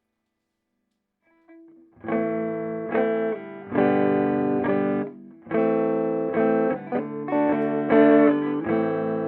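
Electric guitar played through the clean channel of a Peavey Bandit 112 TransTube combo amp, set to classic voicing and plugged into the high-gain input. After a faint first note, a series of chords starts about two seconds in, each ringing out before the next.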